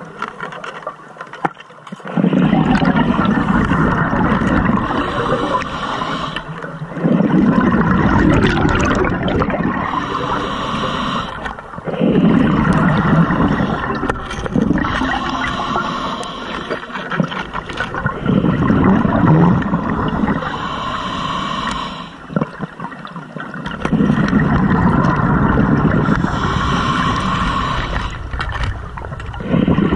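Scuba regulator breathing underwater: a quieter hissing inhale, then a long rush of exhaled bubbles, the cycle repeating about every five seconds.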